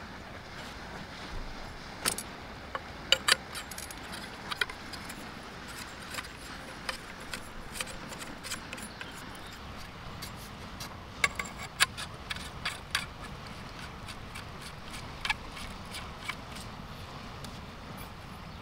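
Sections of a metal tarp pole clicking and clacking as they are pulled apart, handled and fitted together: a scatter of sharp, separate clicks over a steady background hiss.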